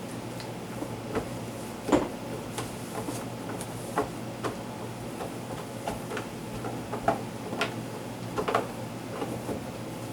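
Irregular light knocks and clicks of plastic refrigerator door parts being handled and wiped with a cloth, the sharpest about two seconds in, over a steady low hum.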